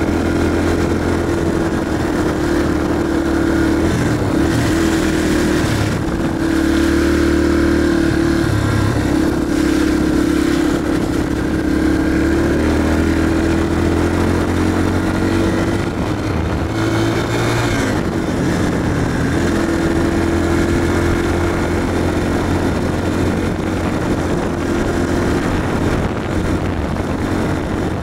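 Yamaha TT-R230 dirt bike's air-cooled single-cylinder four-stroke engine running under way on a gravel road, its pitch rising and falling several times with throttle and gear changes.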